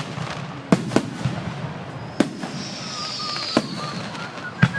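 Fireworks going off: five sharp bangs at uneven intervals, with a hissing stretch and a thin wavering whistle between the third and fourth bangs.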